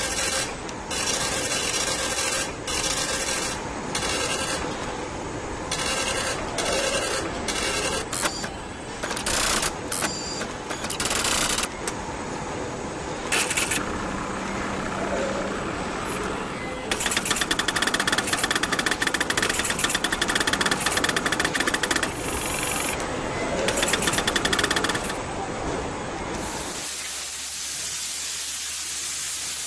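Laser cutting and engraving machines at work: bursts of hissing that start and stop, then a fast buzzing rattle for about eight seconds past the middle, giving way to a steady thin hiss near the end.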